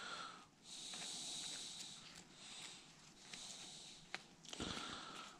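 Faint breathing, heard as soft hissing breaths in a slow, uneven rhythm, with a small click about four seconds in.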